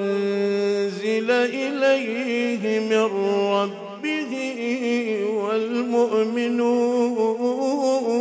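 A man's solo voice reciting the Quran in a melodic, chanted style, drawing out long ornamented notes that waver up and down, with a brief break about four seconds in.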